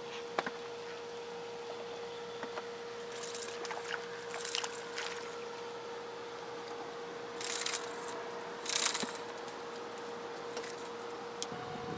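A small skipjack herring being reeled to the boat and lifted aboard, heard as four short splashy, rustling bursts, the last two the loudest, over a steady hum.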